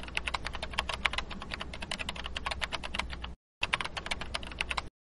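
Computer keyboard typing: a rapid run of key clicks, pausing briefly about three and a half seconds in, then resuming and stopping shortly before the end.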